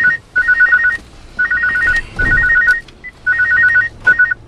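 Phone ringing with an electronic ringtone: a fast two-note warble in bursts of about half a second, coming in pairs, signalling an incoming call. The last burst cuts off short near the end.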